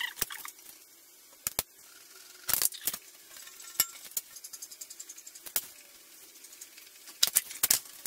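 Screwdriver undoing the screws of a thin sheet-metal cover on a lathe's electrical box: scattered clicks and light metallic knocks, with a faint fast ticking in the middle and a cluster of knocks near the end as the cover comes off.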